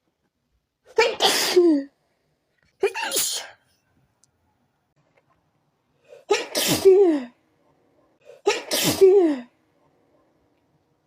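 Four sneezes from a tickle in the nose, each a loud voiced sneeze falling in pitch, in two pairs about two seconds apart with a longer gap between the pairs.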